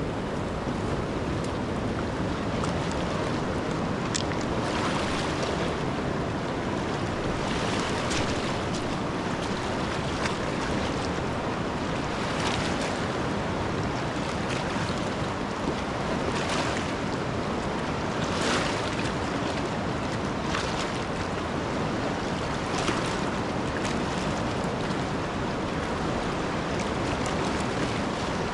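Steady rush of water with wind, broken every few seconds by a short splashing hiss.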